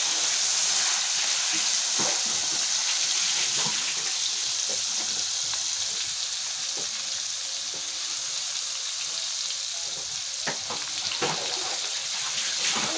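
Flour-dusted eel pieces frying in hot oil in a wok: a steady sizzle with scattered small pops and crackles, a few sharper pops near the end.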